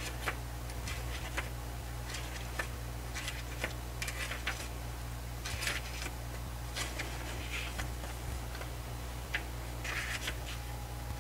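Pages of a paper lyric booklet being turned by hand: brief soft rustles and flips every second or so, over a steady low hum.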